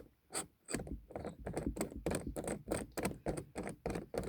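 Quick, irregular clicking and scraping of a metal replacement door lock knob being worked against the threaded lock pin of a car door, its threading too big to catch. Dull handling rumble runs underneath.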